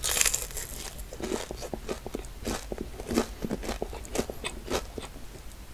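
Close-up crunching and chewing of a sauce-coated deep-fried snack on a skewer. It opens with a loud crisp bite, followed by a run of sharp crunches a few tenths of a second apart.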